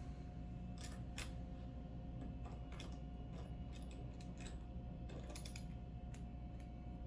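Light, irregular clicks and taps of small metal parts, the aluminum brackets and their screws being handled and fitted, about a dozen in all, over a faint steady hum.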